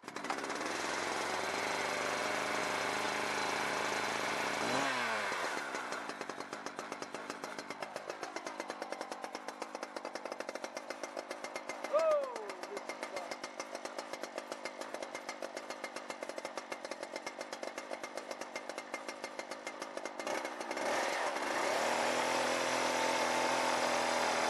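Husqvarna 372XP two-stroke chainsaw running at high speed, then dropping over a few seconds to a steady, evenly pulsing idle. A short, falling squeal comes about halfway through. About 20 seconds in the saw revs back up to high speed and holds there.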